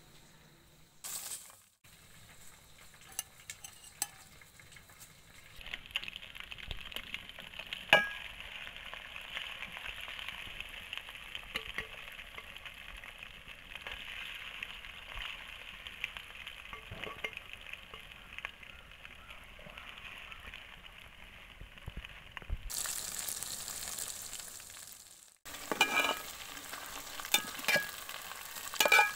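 Battered chicken pieces deep-frying in hot oil in an aluminium pot: a steady sizzle that starts a few seconds in. A metal slotted spoon clinks and scrapes against the pot, with one sharp clink about eight seconds in and several more near the end.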